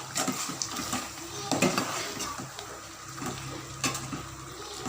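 A spoon stirring and scraping in a cooking pot, with irregular clinks against its sides, as ground masala paste is mixed into simmering chicken.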